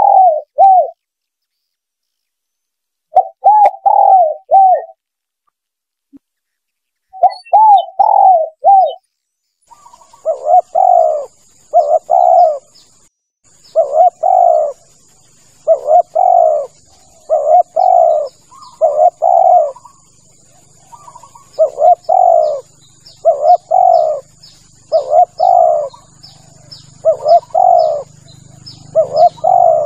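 Spotted dove cooing in repeated phrases. Three separate phrases come first with silence between them. From about ten seconds in, the coos repeat roughly once a second over a faint background with a thin, steady high whine and faint high ticking.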